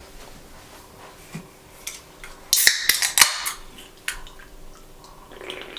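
A drink can being cracked open: a burst of sharp snaps and a short hiss about two and a half seconds in, then a single click about a second later.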